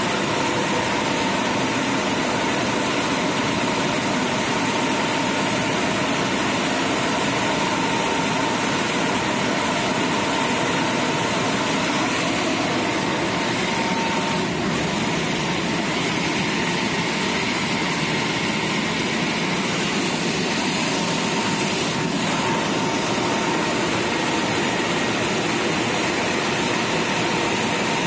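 Automatic conveyor tunnel car wash machinery running: a loud, steady rush of machine and blower noise with a thin, steady whine.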